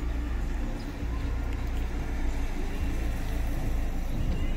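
Urban street ambience dominated by the steady low rumble of a motor vehicle's engine running nearby.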